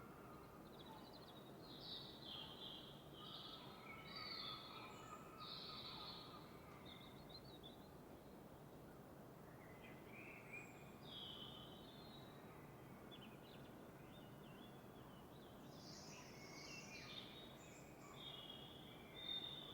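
Faint dawn birdsong: several small birds chirping and warbling in two busy spells, over a soft steady background hiss.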